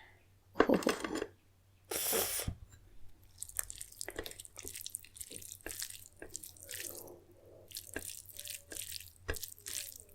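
Curry gravy being poured onto a plate of rice and mixed in by hand. There are two short wet pours in the first few seconds, then a run of soft wet squishes and small clicks.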